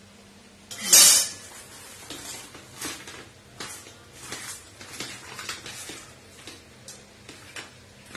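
Steel pots and utensils clanking: one loud metal clank about a second in, then a run of lighter clinks and knocks.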